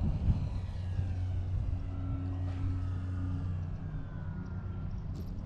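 Wind rumbling on the microphone, with the thin whine of a radio-controlled plane's motor sliding slowly down in pitch as the plane comes in to land.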